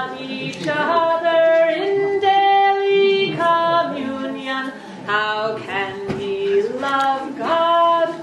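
Women's voices singing a cappella, long held notes that step to a new pitch every second or so, with short breaks between phrases.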